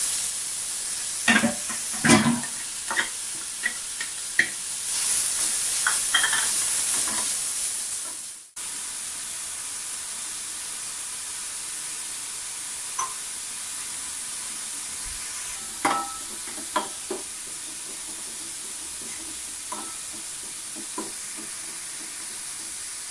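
Grated bottle gourd sizzling in hot ghee in an aluminium frying pan, with a few sharp knocks of a spoon against the pan. After a cut about eight seconds in, a quieter steady hiss with occasional light taps as jaggery is stirred into water in a steel saucepan.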